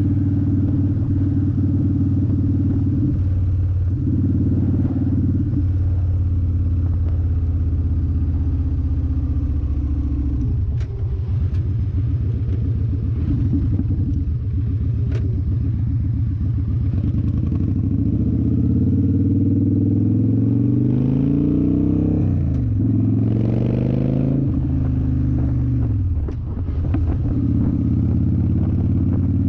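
2011 Victory Vegas Zach Ness V-twin running through a new Bassani Pro Street turnout exhaust on the road. It cruises steadily, then eases off to a low pulsing rumble at a stop about ten seconds in. It then revs up with rising pitch, drops briefly at two gear shifts and settles back to a steady cruise near the end.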